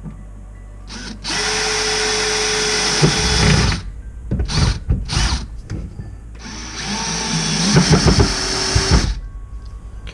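Cordless screw gun driving screws: two steady runs of the motor of about two seconds each, with a couple of short trigger blips between them.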